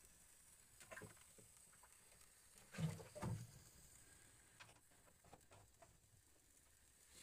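Mostly quiet room tone with a few faint clicks and knocks; two louder dull thumps come close together about three seconds in.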